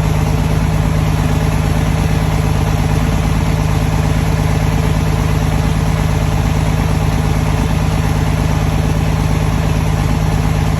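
Triple-turbocharged Cummins inline-six diesel in a third-generation Dodge Ram 2500 idling loud and steady, with no revving.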